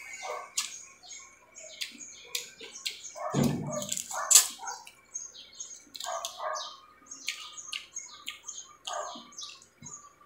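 Close-up eating sounds from a shrimp meal: wet lip smacks, finger-sucking and chewing in a quick run of short, sharp clicks, with one louder, deeper knock about three and a half seconds in.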